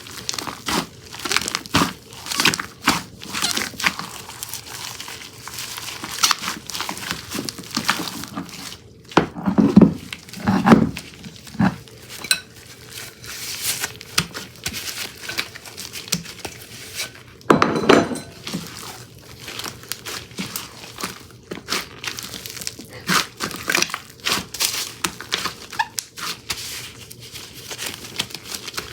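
Hands squishing and stretching slime: a steady stream of irregular sticky crackles and pops, with louder, fuller squelches about ten seconds in and again a little before the twenty-second mark.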